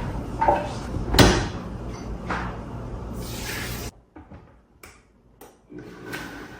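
Kitchen tap running, with a sharp knock about a second in and a few lighter ones. The water cuts off suddenly about four seconds in and comes back on near the end.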